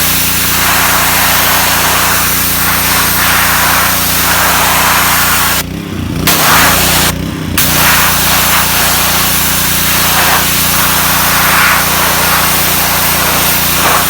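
Ryobi gas pressure washer's Honda GCV160 engine running steadily under the hiss of the high-pressure water spray. The spray stops twice briefly, about six and seven seconds in, and the engine note wavers each time.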